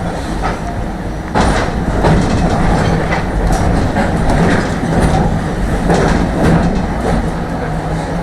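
Tram running along its track, heard from inside the car: a steady rumble of wheels and motors with clicks and clatter as the wheels pass rail joints, getting louder about a second and a half in.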